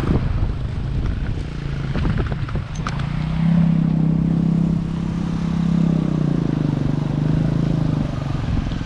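A motor vehicle's engine running close by, its low hum swelling about three and a half seconds in and easing near the end, with a few clatters shortly before the swell.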